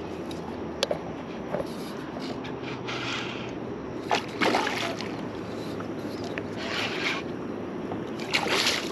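Steady wind and water noise around a small boat, broken by several short splashy bursts as a hooked redfish thrashes at the surface near the boat, the last and loudest near the end.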